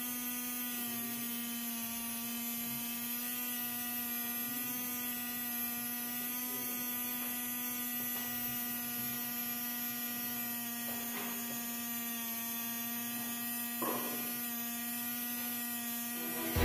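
Small DC motor of a homemade smoke machine running steadily with an even, unchanging hum. A short click near the end.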